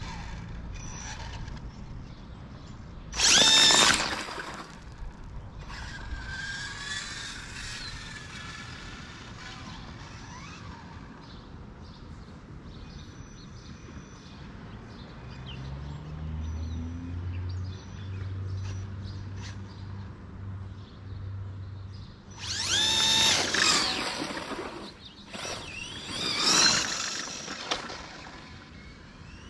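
Radio-controlled drag car's electric motor whining up in pitch in a short, loud burst a few seconds in as it launches down the road. Several more loud bursts of rising whine come near the end, with a low steady hum in between.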